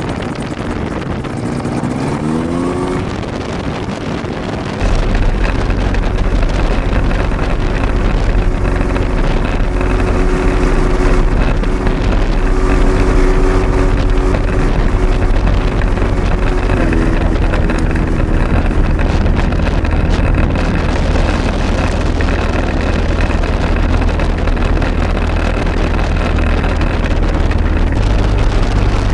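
Hirth 3202 two-stroke ultralight engine running with its propeller turning. In the first few seconds its pitch rises as it is throttled up. About five seconds in the sound jumps to a louder, deep steady run at about 3000 RPM during warm-up.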